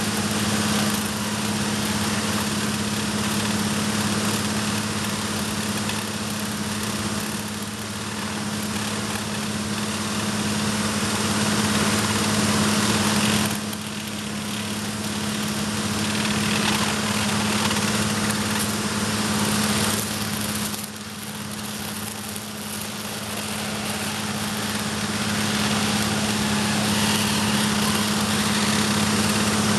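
HHO (oxyhydrogen) torch flame hissing steadily as it burns on gas straight from a 21-plate electrolysis cell, working on steel, over a steady low hum. The hiss dips briefly twice, about midway and about two-thirds through.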